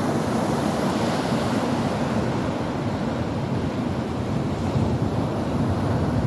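Ocean waves washing onto the shore in a steady surf.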